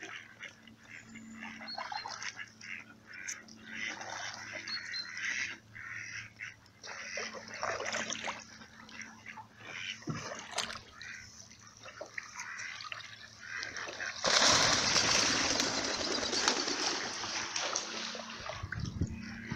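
Canoe paddle strokes splashing in canal water, with mallard ducks quacking nearby. About fourteen seconds in comes a louder rush of splashing that lasts a few seconds.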